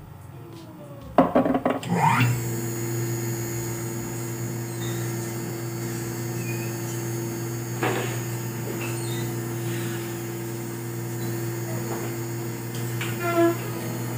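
Dental laboratory bench lathe motor switched on about two seconds in, spinning up and then running with a steady low hum. A few knocks and light clicks come from the work being handled against it.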